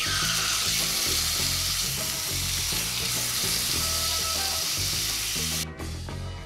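Marinated steak sizzling in hot avocado oil in a cast-iron skillet as the pieces are laid in with tongs; the sizzle cuts off suddenly near the end. Background music with a steady beat runs underneath.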